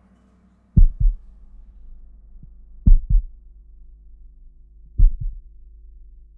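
A slow heartbeat: pairs of low thumps, about one pair every two seconds, three times, over a faint low held drone.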